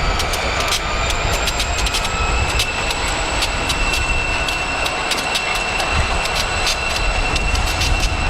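Freight train led by an EMD SD40 diesel locomotive approaching: a steady low rumble with a thin high whine over it, and sharp clicks all the way through.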